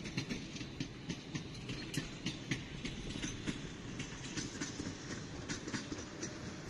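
Street ambience: a steady low rumble of traffic with scattered light clicks and ticks, several a second and at irregular spacing.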